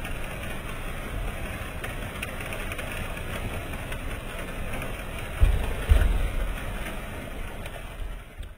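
Apple sizing and grading conveyor running with a steady mechanical hum and clatter. Two low thumps come a little past halfway through.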